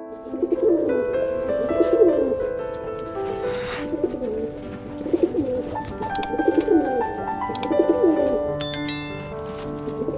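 Repeated short animal calls, about one a second, each sliding in pitch, over background music with held notes.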